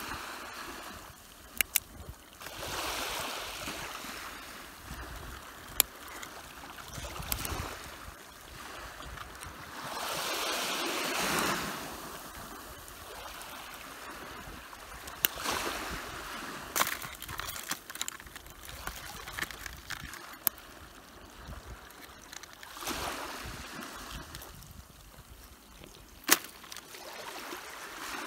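Small waves washing at the shore, swelling up a few times, over a string of sharp clicks and clacks from tongs and hard crab shells as blue crabs are picked out of a mesh landing net.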